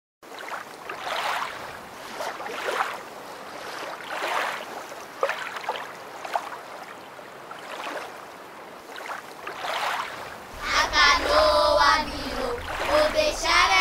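Water sloshing and splashing in soft swells that recur about every second and a half. About ten and a half seconds in, a child starts singing over a low hum.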